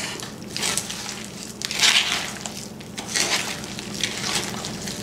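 Hands squishing and kneading raw ground-meat meatloaf mixture with crushed pork rinds in a plastic bowl: irregular wet squelching, loudest about two seconds in.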